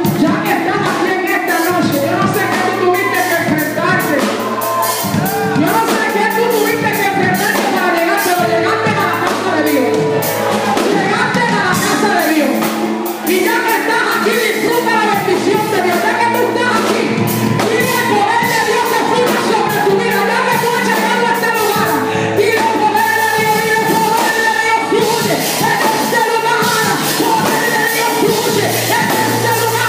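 Live Pentecostal worship music: singers at microphones, led by women's voices, singing over amplified accompaniment with a steady percussive beat.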